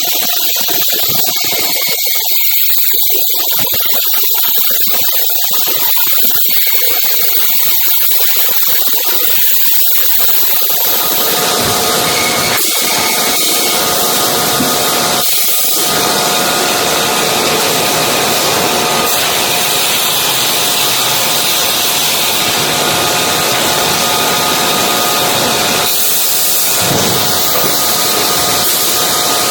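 Sawmill saw machinery running continuously with a steady hiss and whine. About eleven seconds in the sound fills out and grows a little louder, with a couple of brief dips later on.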